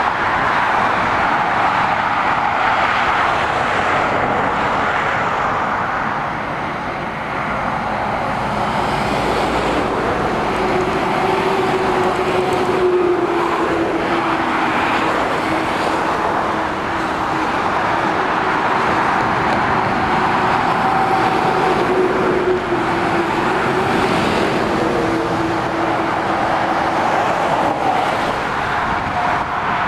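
Motorway traffic: lorries and cars passing in a continuous rush of tyre and engine noise. A steady droning engine note runs through the middle stretch.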